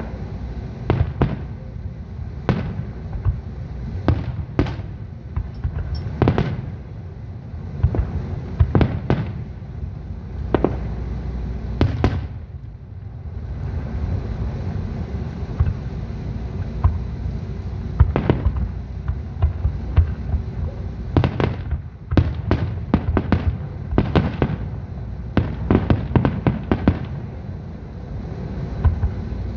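Aerial firework shells bursting one after another over a continuous low rumble, with a rapid cluster of bangs about two-thirds of the way through.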